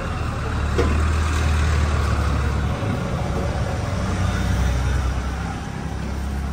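Steady low rumble of street traffic and vehicle engines, swelling a little about a second in.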